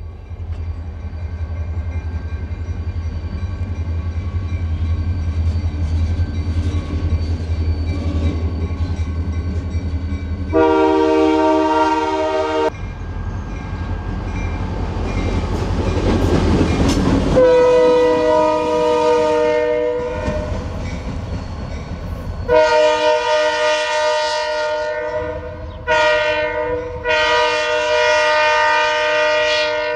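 A single diesel locomotive drawing near, its engine a low rumble and its wheel noise on the rails growing louder. Its multi-tone air horn blows the grade-crossing signal: two long blasts, a short one and a final long one.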